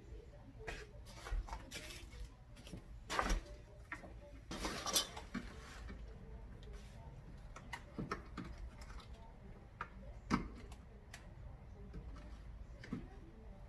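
Irregular clicks, knocks and clatter of the shoe rack's hard plastic parts being handled and fitted together, with a longer scraping rattle about four and a half seconds in.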